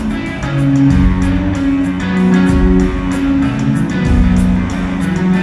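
Rock band playing live, guitars prominent, over a steady beat.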